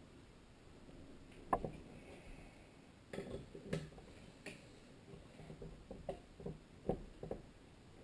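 Irregular metallic clicks and knocks from a torque wrench on the connecting rod cap bolts of a Tecumseh HSK70 crankshaft as the bolts are tightened and the wrench is moved between them. The sharpest knock comes about one and a half seconds in, with clusters of smaller clicks a few seconds later and near the end.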